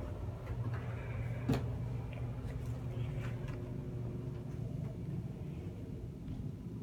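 A steady low hum with a few light knocks and clicks scattered over it, the sharpest about a second and a half in.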